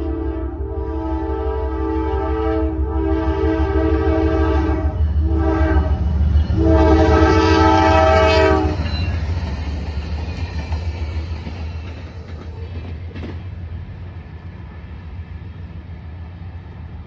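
Nathan K5LA five-chime air horn on a Norfolk Southern GE Dash 9-44CW locomotive blowing the grade-crossing signal. It sounds the end of one long blast, a second long blast, a short one, and a final long blast that is the loudest and stops about nine seconds in. The locomotive's diesel rumble and the wheels on the rails carry on underneath and fade as the train passes and moves away.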